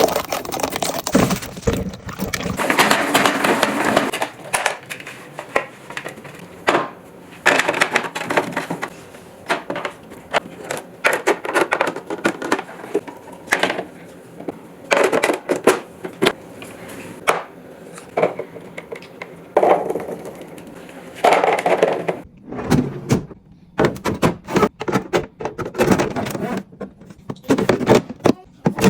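Kitchen food-prep handling sounds: irregular knocks, clicks and clatter, with a few longer stretches of noisy rustling or rinsing.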